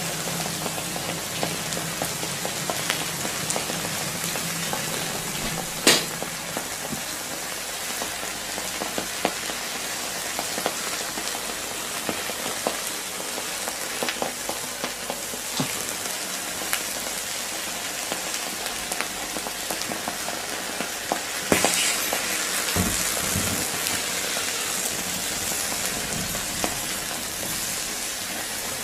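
Laptop sizzling and crackling as molten lava burns into it, a steady hiss dotted with small pops. A sharp crack comes about six seconds in, and a louder flurry of cracks about twenty-two seconds in.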